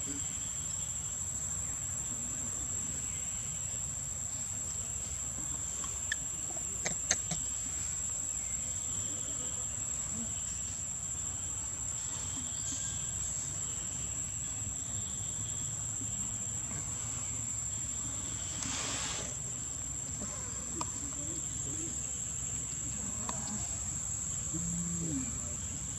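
Insects droning in one steady, high-pitched tone, with a few faint clicks about a quarter of the way in and a brief rush of noise about three-quarters through.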